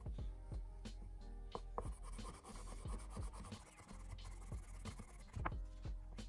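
Cloth rubbing polishing compound over a vintage fountain pen barrel: a scratchy rubbing sound with many small clicks and taps as the pen and cloth shift. Soft background music plays underneath.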